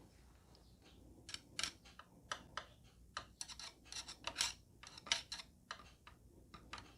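Faint, irregular light clicks and taps, two or three a second from about a second in, as small parts of a car side mirror's folding gear mechanism are handled and fitted into the housing.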